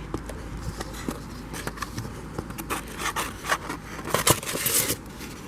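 Handling noises: a run of scrapes and clicks, with a longer, denser scrape a little past four seconds in.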